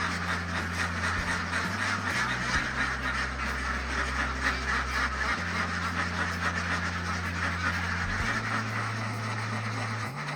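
A flock of ducks quacking, many overlapping calls at once, over background music with held low notes that change every few seconds.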